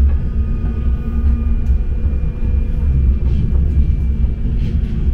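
Inside a Bombardier M5000 light-rail tram running along the track: a steady, loud low rumble with faint steady whining tones above it.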